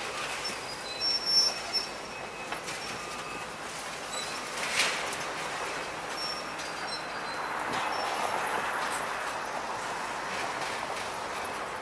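Link-Belt excavators demolishing a building: short high-pitched squeals of metal being pulled and crushed over clattering debris, with a sharp crack a little under five seconds in.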